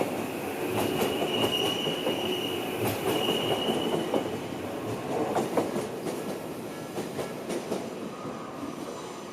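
Odakyu electric train running through the crossing over the points at the approach to Shinjuku Station, its wheels clicking over rail joints and squealing high in the first few seconds. The sound fades off toward the end as the train moves away.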